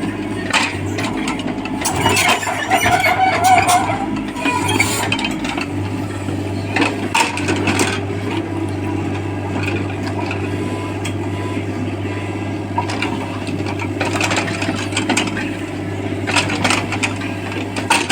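JCB 3DX backhoe loader's diesel engine running steadily, with scattered metallic clanks and knocks over it, busiest a couple of seconds in and again near the end.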